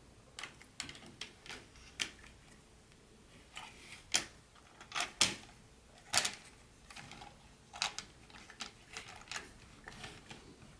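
Hands handling packaging and HO-scale model train pieces: irregular clicks, taps and short rustles, the loudest a few seconds in.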